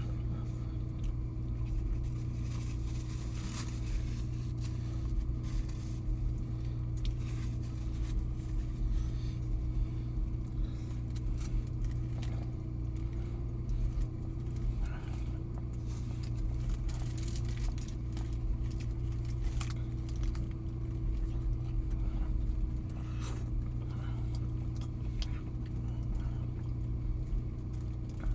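Steady low hum of a car engine idling, heard from inside the car, with scattered small clicks and crunches of someone eating a burger.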